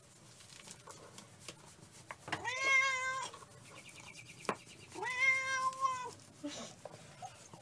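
Tabby cat meowing twice: two drawn-out meows about two and a half seconds apart, each lasting about a second, with a short click between them.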